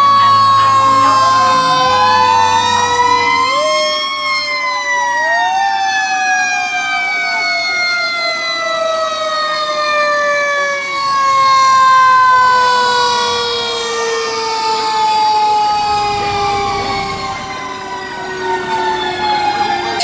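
Fire engine mechanical sirens wound up and left to coast down: a loud wail that falls slowly in pitch over many seconds, with a second siren tone spun up again briefly a few seconds in before it too slides steadily down.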